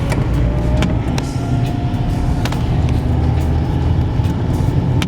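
UAZ running on the road, heard inside the cabin: a steady engine and road rumble with a faint whine that slowly rises in pitch, and a few sharp clicks or knocks.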